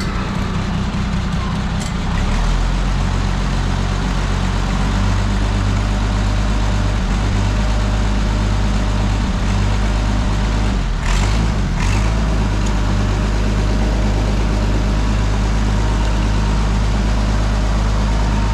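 Oliver 77 tractor's six-cylinder gasoline engine running steadily just after a hard start, which the owner puts down to the engine not getting enough fuel. About eleven seconds in there is a brief rough patch, after which it runs a little louder.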